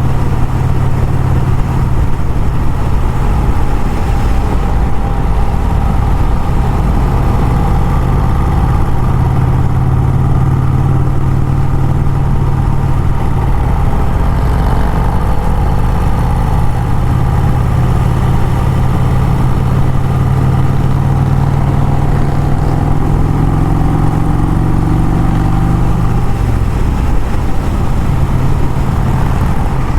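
Motorcycle engine running at road speed, heard from the rider's seat: a steady low drone whose pitch climbs for a few seconds near the end, then drops suddenly as the throttle comes off or a gear changes.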